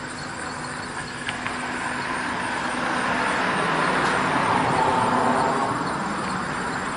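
A motor vehicle passing on a nearby road: its tyre and engine noise builds slowly, peaks about five seconds in, then begins to fade.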